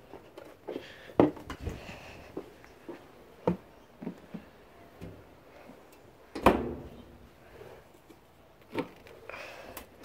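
Irregular knocks and clicks, the loudest about six and a half seconds in.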